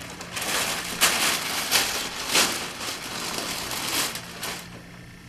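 Plastic bag rustling and crinkling in a run of uneven, loud surges that die away about four and a half seconds in.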